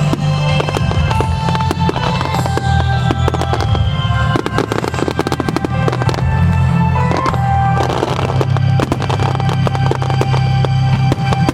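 Aerial fireworks going off in rapid succession, with dense crackling throughout, while music plays over loudspeakers.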